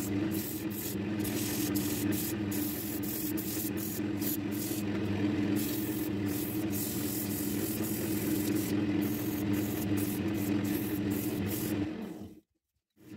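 Wood lathe motor humming steadily while folded sandpaper hisses against a spinning mahogany disc. The hiss comes and goes as the paper is pressed and lifted. The sound cuts out suddenly for about half a second near the end, then resumes.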